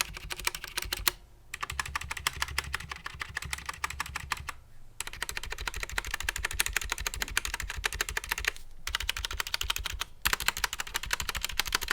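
SteelSeries Apex M400 mechanical keyboard with QX1 switches and ABS keycaps being typed on fast: a dense run of key clicks, broken by short pauses about a second in, near five seconds and near nine seconds.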